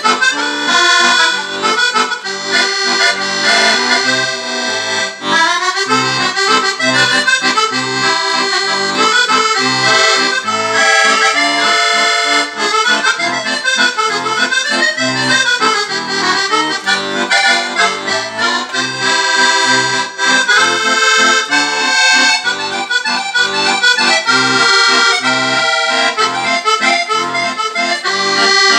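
Chromatic button accordion playing a musette tune: a running melody in the right hand over a regular bass-and-chord accompaniment.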